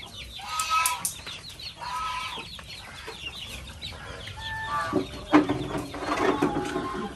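Chickens clucking, a string of short calls, loudest about five seconds in.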